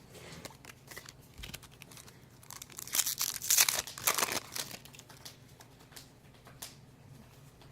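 Foil booster-pack wrapper crinkling as it is handled and crumpled, loudest from about three to four and a half seconds in, among light clicks and taps of trading cards being handled.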